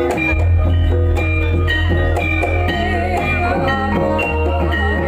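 Javanese gamelan music for a kuda kepang dance: struck metallophone notes in a quick, interlocking rhythm over a steady heavy bass.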